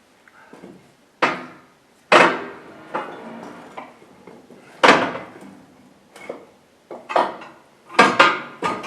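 Irregular sharp metallic clanks and knocks with a short ring, about eight of them, the last ones coming in quick pairs: a heavy lathe being wedged and pried into place on a trailer.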